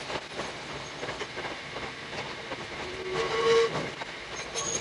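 Hakone Tozan Railway 2000 series electric train running on mountain track, heard from the front of the car, with a short steady tone about three seconds in.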